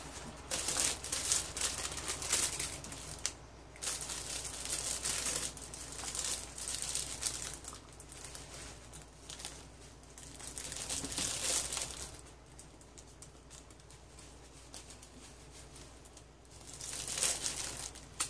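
Plastic bread wrappers crinkling in repeated bursts as bread is unwrapped and handled, with a quieter stretch in the second half.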